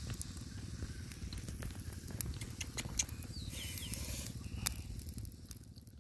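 Snails cooking in their shells on a wire grill over a fire, sizzling with scattered sharp crackles and pops over a steady low rumble. A brief high chirp comes about halfway through, and the sound fades out at the very end.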